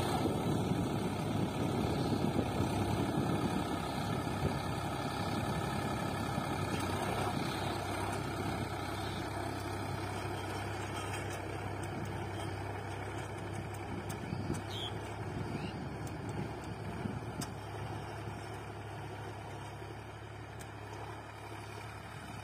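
Sonalika Sikander 47 RX tractor's diesel engine running steadily under load as it pulls a disc harrow through the soil. It grows gradually fainter as the tractor moves away.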